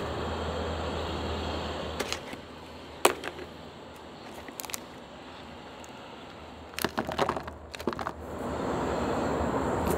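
Plastic food packaging and a plastic tray handled: a few sharp clicks and crinkles as sealed packets are set into the tray, then a quick cluster of crackles as rice cakes are tipped from a plastic pouch. A steady rushing background noise is louder at the start and again near the end.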